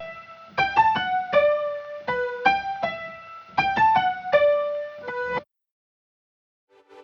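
Background music: a soft keyboard melody of separate struck notes, stopping about five seconds in, then a gap of silence before a sustained synth chord fades in near the end.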